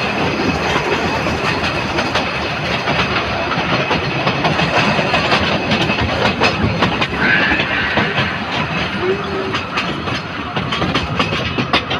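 Narrow-gauge train running along the track, its wheels clattering steadily over the rails.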